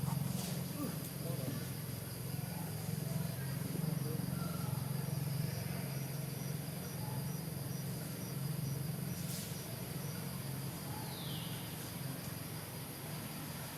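A steady low hum runs throughout and is the loudest sound. From about five seconds in to near ten, a string of short, high, evenly spaced chirps like an insect's can be heard, about two or three a second.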